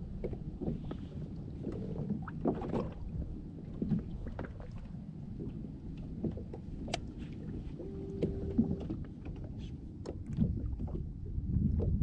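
Water lapping and slapping against a Hobie Outback kayak's hull, with scattered small knocks and clicks of gear on board and a short steady tone about eight seconds in.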